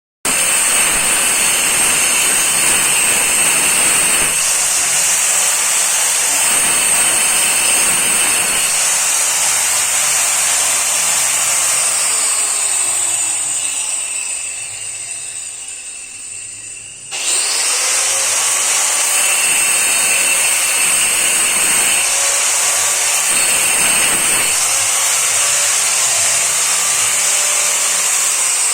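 A handheld electric power tool running loudly and steadily with a high whine. Around 12 seconds in it fades and its pitch falls as if slowing, then it comes back to full speed abruptly near 17 seconds.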